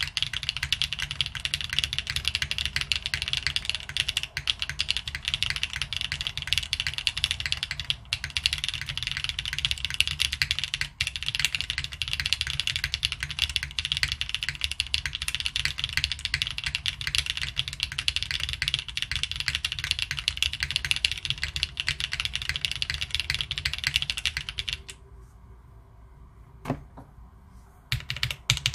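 Fast, continuous typing on a Fukuro custom mechanical keyboard: top-mounted polycarbonate plate, stock Leobog Standard Brown tactile switches and GMK keycaps. The typing stops about 25 seconds in, with a single keystroke in the pause, and starts again near the end.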